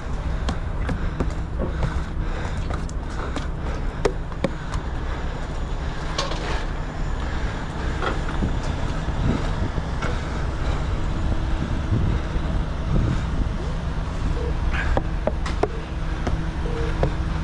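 Semi truck's diesel engine idling steadily, with wind on the microphone and scattered light taps and clicks.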